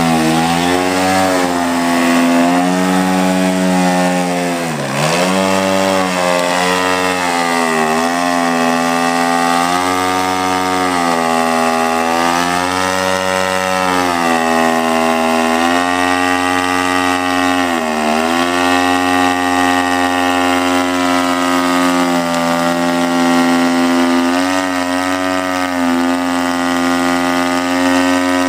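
The engine and propeller of a Yak 55 3D radio-controlled aerobatic model running while the plane hovers on its prop. The pitch rises and falls steadily as the throttle is worked to hold the hover, with a sharp drop and recovery about five seconds in and another dip near eighteen seconds.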